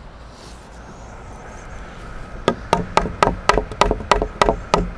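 A hammer striking wood framing: a quick run of about ten sharp blows, roughly four a second, starting about halfway through.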